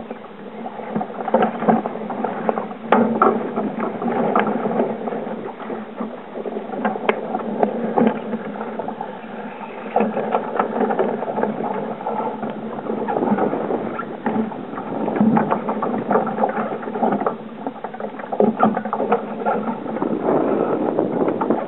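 A Sabre-class wooden sailing dinghy under way in strong wind: a constant, uneven rush and splash of water along the hull, with many sharp clicks and knocks from the boat and its fittings.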